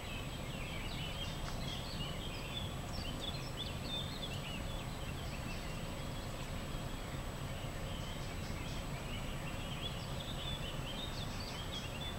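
Common pheasant chicks peeping: many short, high calls with quick slides in pitch. They come thick for the first few seconds, thin out, and come thick again from about eight seconds in, over a steady hiss of rain.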